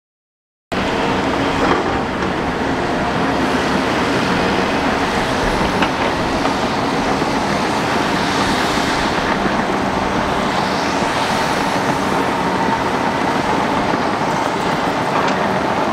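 Shantui crawler bulldozer's diesel engine running steadily under load as it pushes dirt, with the clatter of its steel tracks; the sound cuts in abruptly under a second in.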